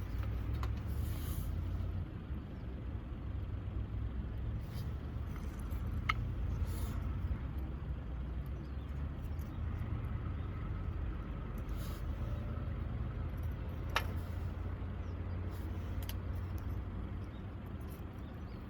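Campfire burning with a steady low rumble and scattered sharp pops, two louder ones about six and fourteen seconds in.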